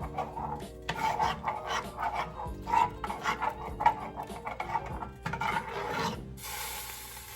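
Quick, irregular scraping and rubbing strokes, several a second, with background music underneath and a short hiss near the end.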